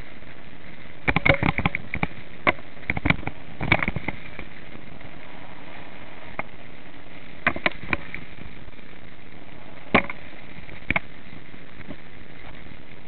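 Mountain bike jolting down a bumpy dirt track: sharp knocks and rattles of the bike and camera mount come in irregular clusters over a steady hiss.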